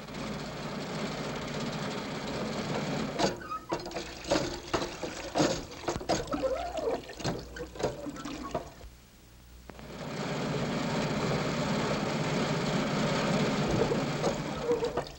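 Radio sound effect of an old, crippled car driving: a steady engine rumble, then a stretch of irregular knocks and rattling clatter. The sound drops away briefly about nine seconds in, then the steady running resumes.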